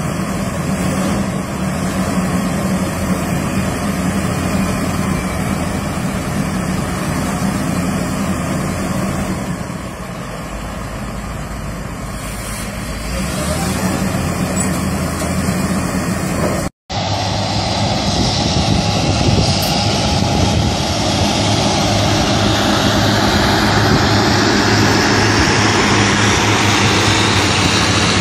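A Komatsu wheel loader's diesel engine running steadily while its arms raise the bucket. After a sudden break about two-thirds of the way in, a John Deere 670G motor grader's diesel engine runs louder as it grades dirt with its blade.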